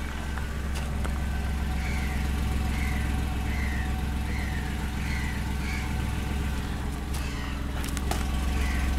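Renault Kwid's three-cylinder petrol engine idling steadily.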